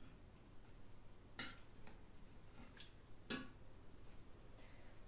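Near-silent kitchen room tone with a handful of faint clicks and light taps from a plate and utensils being handled, the clearest about a second and a half in and just past three seconds in.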